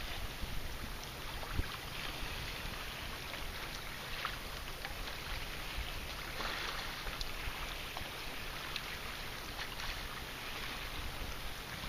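Gentle saltwater lapping and trickling against the kayak and the shoreline rocks, with scattered small drips and splashes and a low rumble of light wind on the microphone.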